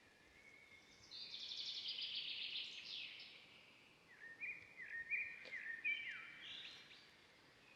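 Birdsong: a fast, high trill about a second in, then a run of short whistled notes that step and slide down in pitch, and another short trill near the end, over a faint steady hiss.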